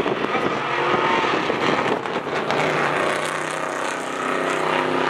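An old Dodge pickup truck racing another pickup down a drag strip at full throttle, the engine note climbing steadily in pitch as the trucks accelerate.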